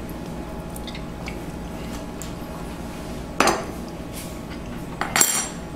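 Steel cutlery set down on a wooden cutting board: one clack from the steak knife about three and a half seconds in, then two quick, ringing clinks from the fork near the end, over a low steady hum.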